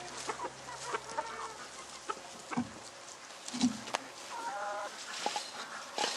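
Chickens clucking, with short calls about a second in and again near the end. Scattered clicks and two soft thumps come in between.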